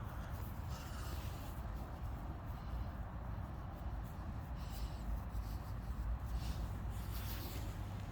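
Short scratchy rustles of fabric, several times over a steady low rumble: a small dog moving about in a costume.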